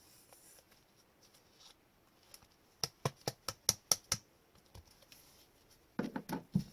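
Trading cards being handled: a quick run of about seven light, sharp clicks partway through, then a short cluster of duller taps near the end.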